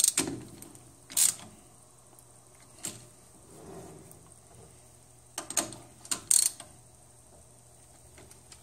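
A handful of separate metallic clicks and knocks from a lathe's four-jaw chuck being worked by hand while its offset is dialed in against a dial indicator. The loudest come about a second in and near the end.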